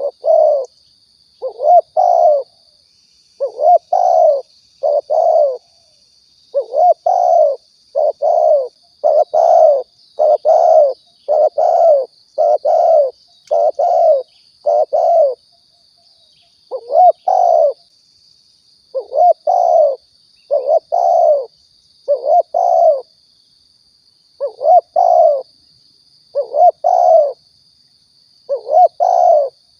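Spotted dove (tekukur) cooing over and over, short coos coming in pairs and threes with brief gaps: a recorded lure call used to draw doves in.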